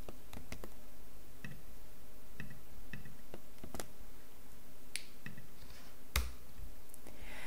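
Scattered light computer mouse and keyboard clicks, a dozen or so spread irregularly, with one sharper click about six seconds in, over a faint steady hum.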